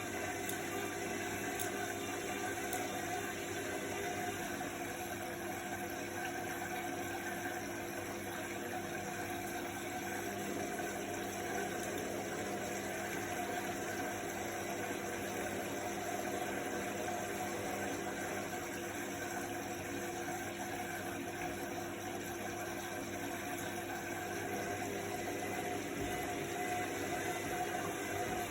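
Indesit front-loading washing machine running a quick wash cycle: a steady mechanical hum and whir from the turning drum, unchanging in level.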